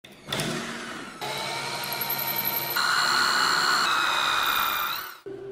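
Electric drill boring into a kukri knife's handle, its motor whine steady but stepping to a new pitch a few times, then rising briefly before it stops near the end.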